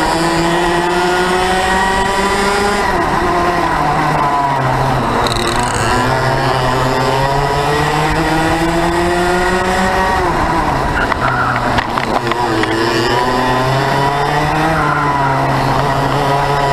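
Go-kart's two-stroke engine heard from onboard, racing: its pitch climbs steadily, drops away sharply about three seconds in, climbs for several seconds, drops again around ten seconds in, then climbs in two shorter runs near the end, following the straights and corners.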